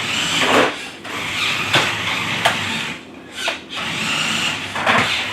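Toy remote-control 4x4 truck's small electric motor and gears whirring in short bursts as it is driven, with a few clicks. It drops out briefly about three seconds in.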